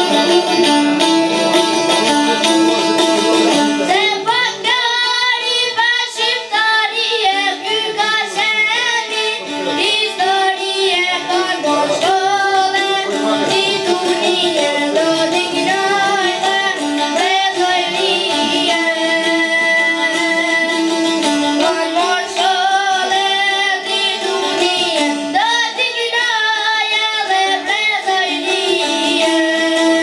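A boy sings an Albanian folk song in a high voice with wavering, ornamented notes, accompanied by two çifteli (two-string long-necked lutes) plucking a repeating melody. The lutes play alone for about the first four seconds before the voice comes in.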